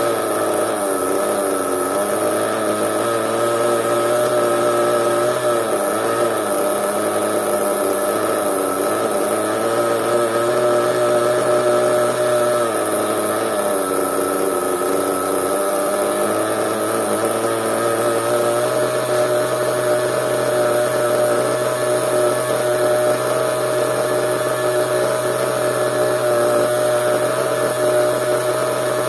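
Small nitro (glow-fuel) engine of a radio-controlled monster truck running steadily at a high idle, its pitch sagging briefly a few times before picking up again.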